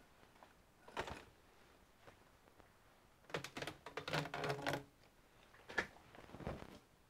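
Small tools and parts handled on a workbench: a single click about a second in, a burst of rapid clicking and rattling in the middle, and a couple more knocks near the end.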